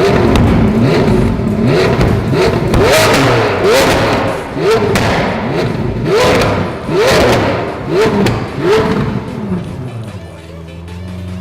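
Lamborghini Aventador SV's naturally aspirated V12 through a straight-through valvetronic Fi exhaust with catless downpipes, blipped hard again and again, about one rev a second, with sharp pops and bangs on the overrun as it spits flames. Near the end the revving stops and steady music takes over.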